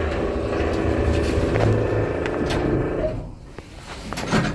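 A 1954 geared traction elevator setting off, the car in motion: a steady mechanical hum with several steady tones, dying down about three seconds in.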